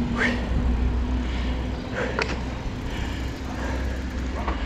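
Low, steady rumble of wind and rolling noise on a bike-mounted camera as a mountain bike coasts slowly over pavement, with a few short high chirps.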